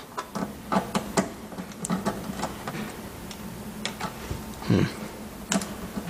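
Irregular light clicks and taps of a screwdriver working the Torx screws in a dishwasher's sheet-metal casing. Several come in quick succession in the first couple of seconds, and a few more follow later.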